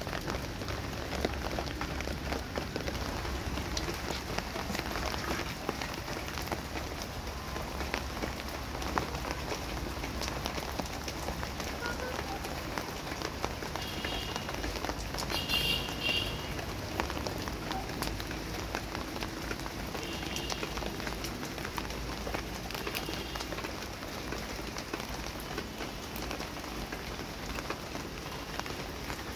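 Steady rain falling on a concrete terrace and potted plants, heard as an even hiss dotted with many small drop ticks. A brief high chirp sounds about halfway through.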